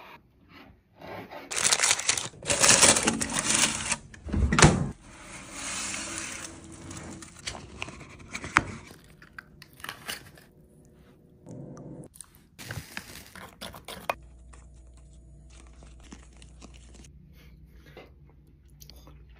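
Kitchen handling noises from making cinnamon rolls: loud rustling and crinkling for the first few seconds, a heavy thump about four and a half seconds in, then scattered scraping and clicks that die away after about fourteen seconds into a faint hum.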